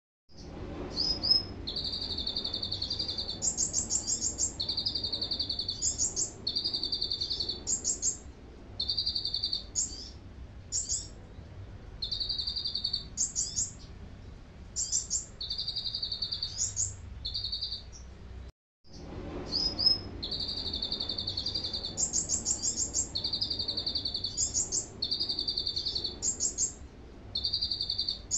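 Kolibri ninja sunbird singing a canary-style song: buzzy trills about a second long alternating with quick, very high notes, phrase after phrase. There is a brief cut-out about two-thirds through, and then the same run of phrases starts again.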